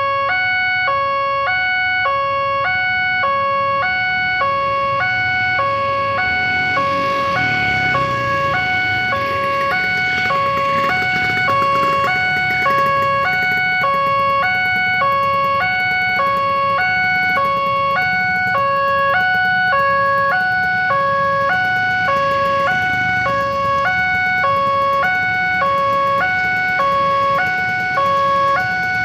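Electronic warning siren of a railway level crossing, alternating steadily between two pitches about every two-thirds of a second over a constant higher tone: the crossing is closed for an approaching train. A passing vehicle adds a rush of noise about 7 to 12 seconds in.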